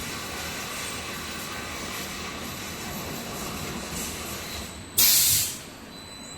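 Automatic mattress tape edge sewing machine running steadily, with a short, loud hiss of released air about five seconds in.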